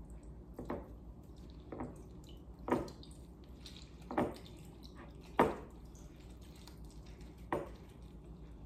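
A lemon half being juiced by hand with a wooden reamer over a glass measuring cup: soft squishing of the pulp, with about six short, separate drips of juice falling into the glass.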